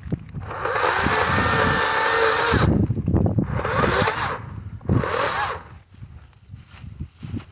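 Kobalt 40V battery chainsaw spinning up to full speed for about two seconds, then squeezed twice more in shorter bursts, falling silent between trigger pulls as an electric saw does. Rustling and crackling of brush run underneath.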